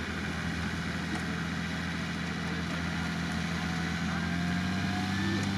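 Off-road vehicle engine running steadily at low revs, its drone creeping up slightly near the end.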